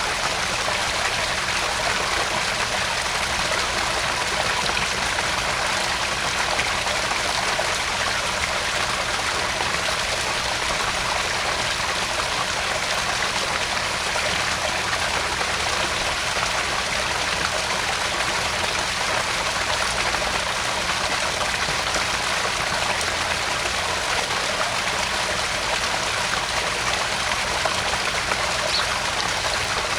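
Small garden pond waterfall: water splashing and trickling steadily into the pond.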